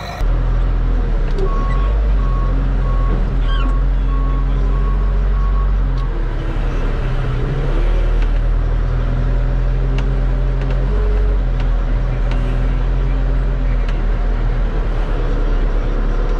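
Diesel engine of a front-end loader tractor running hard while it scoops and lifts a bucket of compost, heard from inside its cab. For the first few seconds a backup alarm beeps about twice a second.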